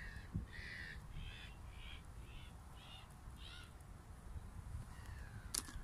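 A bird giving a series of about six short, harsh calls roughly half a second apart, which stop about three and a half seconds in.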